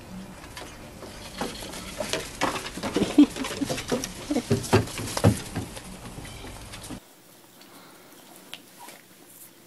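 Irregular rustling and light pattering from a displaying peacock's fanned train feathers and a kitten scampering on wooden decking. The sound cuts off about seven seconds in.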